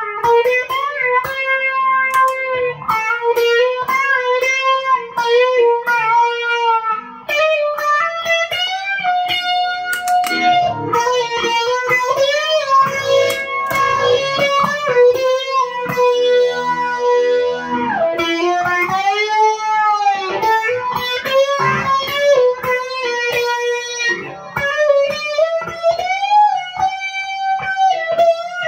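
Electric guitar, a single-coil Fender Stratocaster through effects pedals into a Fender Twin Reverb amp, played lead: picked notes and sustained notes with bends and vibrato.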